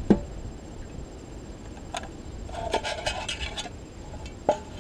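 Handling of a grey nested camping cup set and an opened sparkling-wine bottle: a sharp click at the start, another about two seconds in, a short burst of rattling clicks about three seconds in as the cups come apart, and a last knock near the end.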